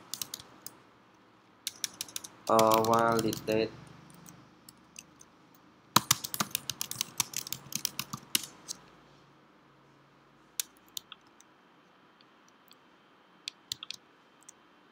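Typing on a computer keyboard: short runs of keystrokes at the start and about two seconds in, a longer fast run from about six to nine seconds in, then a few isolated clicks near the end.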